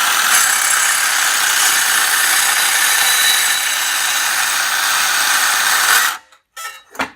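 A heavy power saw cutting through scrap wood: a loud, steady cutting noise that stops abruptly about six seconds in. The saw cuts slowly and leaves a rough, splintered edge.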